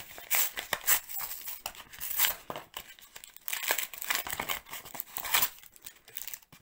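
Cardboard blister packaging being torn open by hand: a run of irregular paper-and-card rips, with the plastic blister and foil booster crinkling as it is pulled free near the end.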